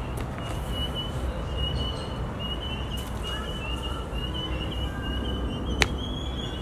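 Low rumbling handling noise on a phone's microphone as a grey horse's head presses close, with a sharp knock near the end and a fainter one about three seconds in. A thin, wavering high chirping tone runs underneath.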